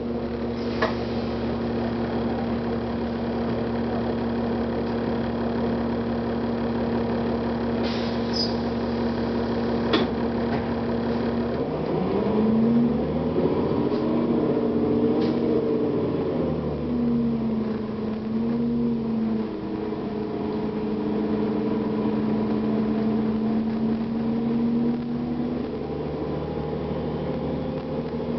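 Cummins ISL inline-six diesel of a 2009 Gillig Advantage transit bus running steadily, then revving up about 12 seconds in, its pitch rising and falling for several seconds before settling back to a steady run. A few sharp clicks sound over it.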